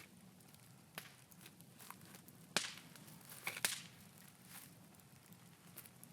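Wood bonfire of scrap timber and logs crackling, with irregular sharp pops, the two loudest about a second apart near the middle.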